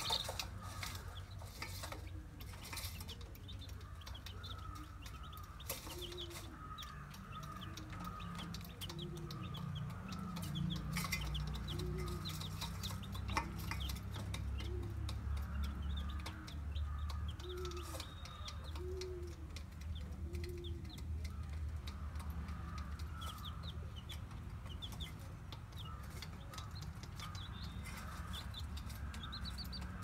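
Caged quail and baby chicks calling: a steady scatter of high cheeps and chirps, with a run of low clucks about once a second through the middle, over a steady low hum.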